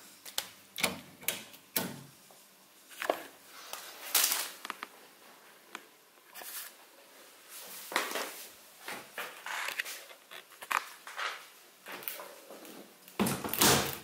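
Scattered clicks and knocks of plastic parts being handled on a front-loading washing machine, with a louder thud near the end as the drum door is pushed shut.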